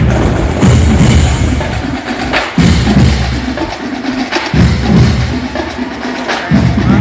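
Marching band drumline playing a street cadence: bass drums beating in repeated phrases, with snare and sharp stick clicks over the top.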